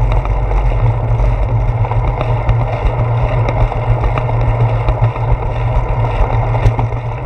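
Wind rumbling over a handlebar-mounted GoPro Hero 4 as a bicycle rolls along a wet paved path, with hiss from the tyres on the wet surface and a few small knocks from bumps.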